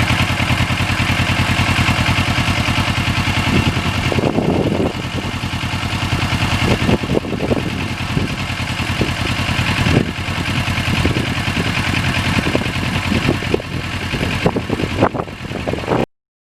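Kawasaki Ninja 650R's parallel-twin engine idling steadily with an even pulse. It cuts off abruptly near the end.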